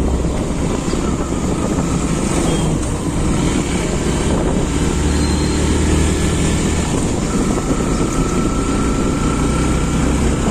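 Motorcycle riding along a road: the engine runs steadily under a heavy low rumble of wind buffeting the microphone.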